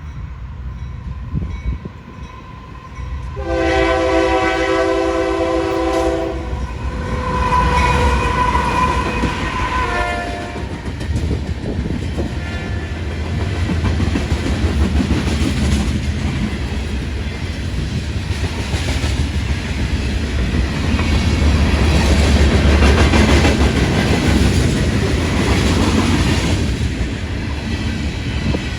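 A passing train's locomotive sounds its multi-chime air horn in two blasts, about 3 s each; the second is lower in pitch. The train then rumbles past with rail clatter, loudest about three quarters of the way through.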